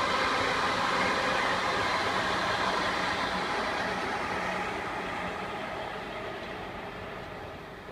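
Electric multiple-unit passenger train running past on the tracks below, with a steady whine, fading away as it moves off.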